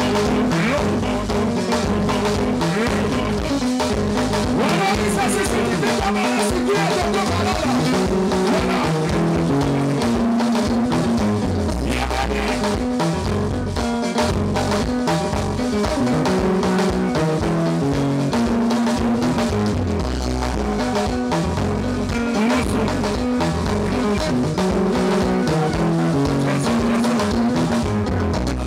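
Live band playing a dance tune: electric guitar over a stepping bass line and a steady drum beat, loud and unbroken.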